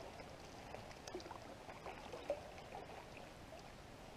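Faint water sounds of a canoe paddle stroking through calm water and dripping, with a few light ticks.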